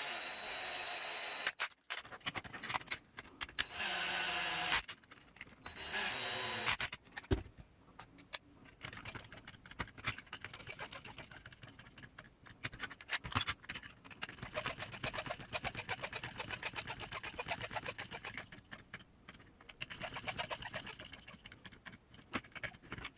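Cordless electric screwdriver running in short bursts as it drives small machine screws, its motor speeding up and slowing down. This is followed by a long run of light, irregular clicks and taps from small parts and tools being handled.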